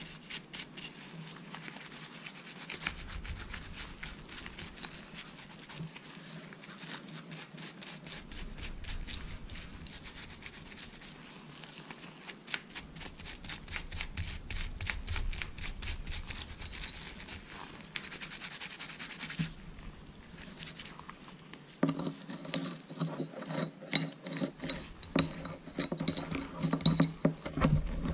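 A small stiff brush scrubbing the paint-stripped metal body of a 1:64 die-cast Chevrolet Silverado toy truck in rapid strokes, brushing away paint softened by a thinner bath.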